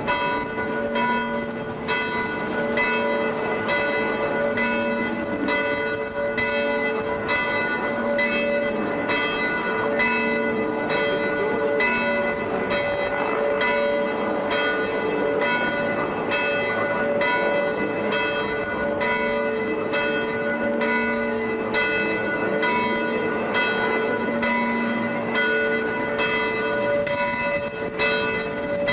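Several church bells pealing together, a steady run of strokes a little more than one a second, each bell's tone ringing on between strokes.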